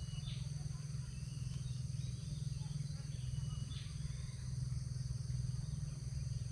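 A steady chorus of insects buzzing in several high, even tones, with a few short bird chirps, over a steady low hum.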